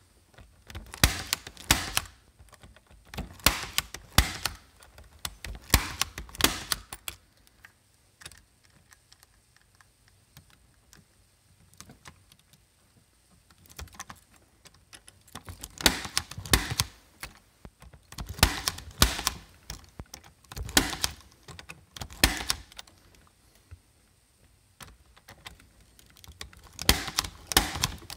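Punch-down tool seating Cat 6 wires into a patch panel's terminals: runs of sharp, repeated clicks and snaps, with a quiet stretch of several seconds about a third of the way in.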